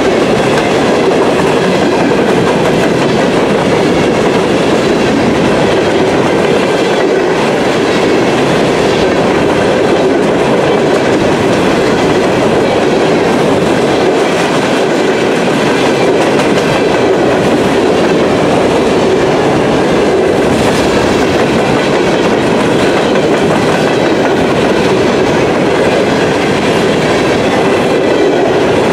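Empty coal hopper cars of a freight train rolling past: a loud, steady rumble and clatter of steel wheels on the rails.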